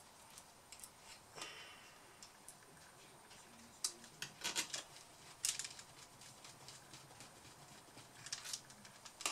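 Light, scattered clicks and taps of a small precision screwdriver and tiny screws against a laptop's plastic chassis and motherboard: a handful of separate ticks spread over several seconds.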